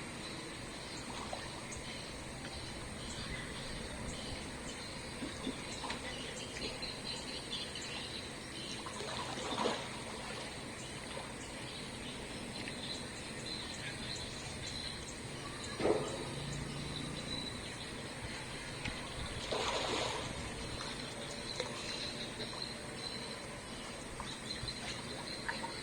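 Steady trickle of running water, with a faint high chirring over it. Three short louder noises break in, the sharpest about sixteen seconds in.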